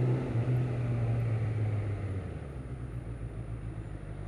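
Suzuki Bandit 650 S motorcycle's inline-four engine running at low speed, its steady note falling lower and quieter about two seconds in.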